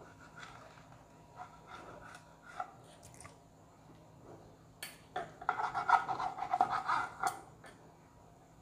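Kitchen knife cutting a thin omelette into strips on a plastic chopping board: light taps and scrapes of the blade on the board, then a louder run of quick rasping strokes for about two seconds past the middle.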